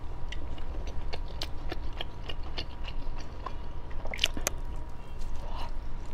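Close-miked eating sounds: a person biting and chewing a starch sausage skewer, with wet mouth clicks and smacks throughout and a louder pair of bites about four seconds in.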